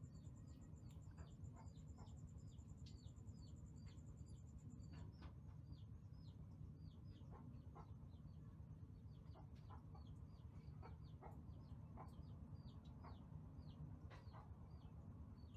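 Faint high peeping calls, each short and falling in pitch, two or three a second, over a low steady hum. A fast, high pulsing trill stops about five seconds in.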